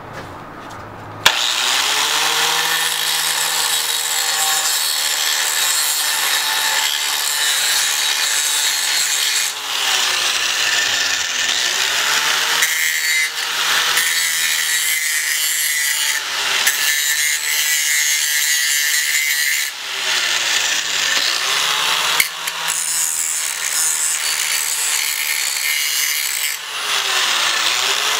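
Angle grinder switched on about a second in and grinding the edges of a metal shock tab mount held in a vise. Its motor tone sags and recovers several times as the disc is pressed onto the metal and eased off.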